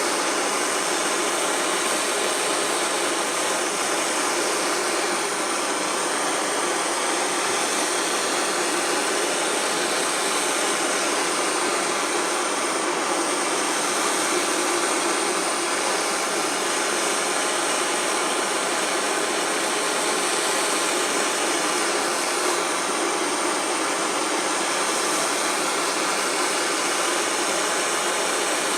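DIY gas blowtorch burning with a steady, unbroken rushing noise while heating aluminium strip for soldering, its tone wavering slowly in the upper range.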